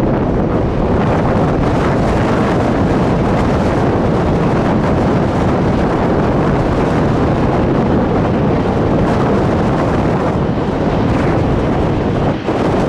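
Strong wind buffeting the microphone: a loud, steady rumbling noise with a brief dip near the end.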